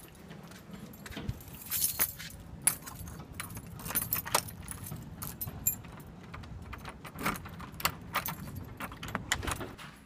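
A bunch of keys jangling with scattered sharp metallic clicks, as keys are worked in a front door's deadbolt and knob lock.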